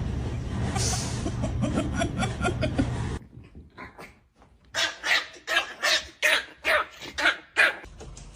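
A dog barking in a quick run of about eight sharp barks, roughly three a second, starting about five seconds in.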